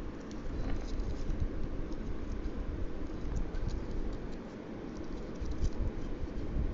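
Origami paper being folded and creased by hand: small crinkles, rustles and taps of paper under the fingers, over a low steady rumble.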